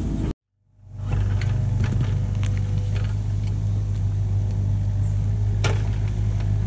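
Kubota KX71 mini excavator's diesel engine running steadily under load as it digs, with scattered knocks and cracks as the bucket tears out soil and roots, and one sharper knock near the end. The sound drops out briefly just after the start, then fades back in.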